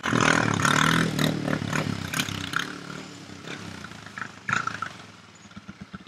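Quad ATV engine running and pulling away, its sound fading steadily, with several rattling knocks along the way.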